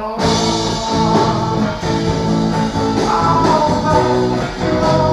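Rock song by a late-1970s band, with electric guitar: the full band cuts in loudly just after the start and plays on.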